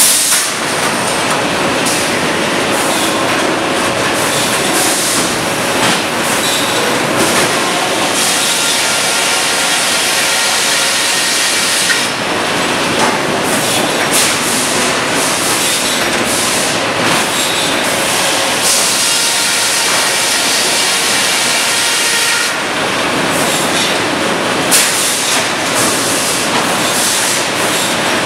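Loud, steady sawmill machinery: a Cleereman log carriage running on its rail track at the headsaw, with a continuous mechanical clatter.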